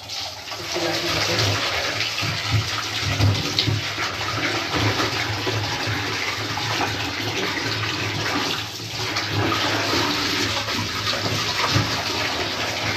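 Tap water running from a pipe into an aluminium pot and splashing over boiled wild boar meat and bones as hands rinse and turn them. It is a continuous rushing pour, with soft knocks of meat and bone against the pot.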